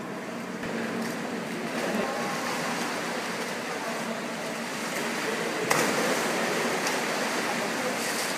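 Water splashing and churning as walruses plunge into and thrash in a pool, heard as a steady rushing noise. There is a sharper, louder splash about six seconds in.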